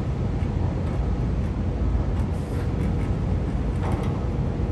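Steady low rumble of the tanker's machinery heard on deck, mixed with wind, and a faint steady hum above it.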